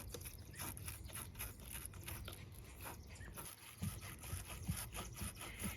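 Wire battery-terminal brush scrubbing the battery posts: a faint, rapid scratching, with a few small knocks in the second half.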